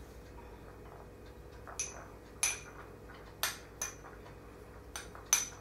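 A spoon clinking lightly against a small bowl while grated cheese is spooned out and sprinkled: about six short, scattered clinks with a brief ring.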